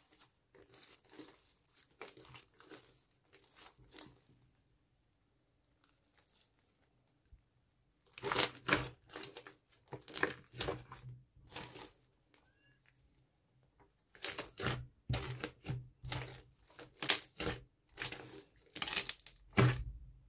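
Hands squishing, stretching and pressing thick, sticky beaded slime, giving wet crackling clicks. The crackling is faint at first, stops for a few seconds, then comes back in two loud bouts of several seconds each.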